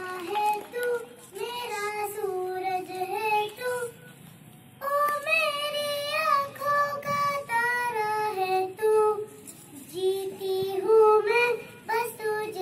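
A young girl singing solo into a microphone, one child's voice with long held notes and a short pause about four seconds in.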